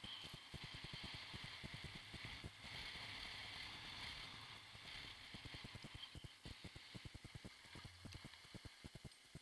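Skiing downhill heard through a body-worn action camera: a steady hiss of skis sliding on snow, with rapid low thumps of wind buffeting the microphone.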